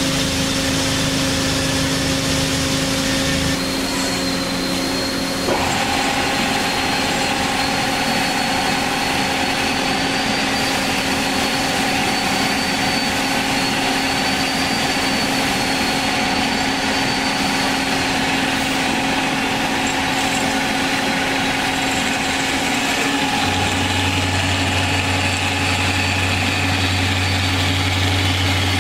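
Hyd-Mech S-20A horizontal band saw running its automatic cycle after cycle start is pressed: a steady machine hum of pump and motor. About five seconds in there is a click and a new tone joins, and a deeper low hum comes in near the end.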